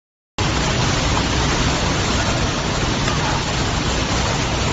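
After a brief gap of silence, a steady, loud rush of typhoon wind and driving rain.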